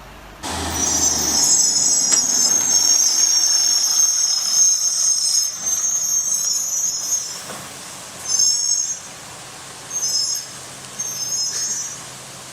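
Logging truck's brakes squealing loudly in a high, multi-toned screech for about seven seconds, then in several short squeals.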